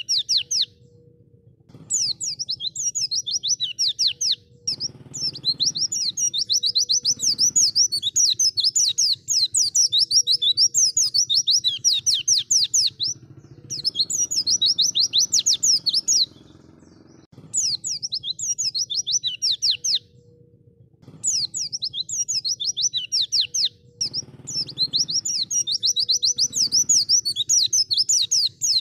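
White-eye (pleci) song: long bouts of fast, high twittering made of quick sweeping notes, each bout running several seconds with short breaks between, over a faint low hum. This is pleci song of the kind played as a lure to get a silent pleci to sing.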